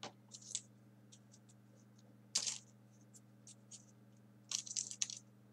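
Folded paper 3D origami units being picked from a pile and pushed into place on the model: short, scattered paper clicks and rustles, with a louder one about two and a half seconds in and a quick cluster near the end.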